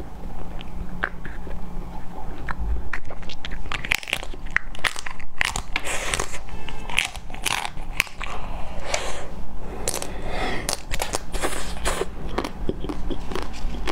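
Close-miked biting and chewing of frozen ice cream, a run of crisp crunching bites and small crackles that grows busier a few seconds in.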